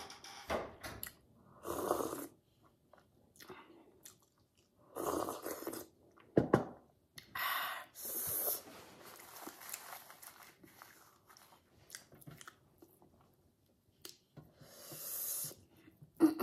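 Close-up eating sounds: a person chewing rice and curry eaten by hand, in short separate bursts, with a sharp knock about six and a half seconds in.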